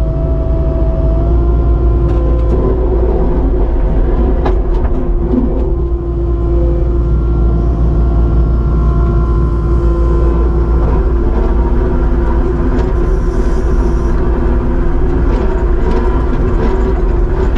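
Kubota SVL75-2 compact track loader's diesel engine running with the throttle raised: a loud, steady drone with a steady whine above it.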